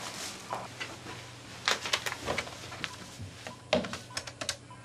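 Scattered light clicks and knocks of objects being handled, a few sharper than the rest, over a low steady hum.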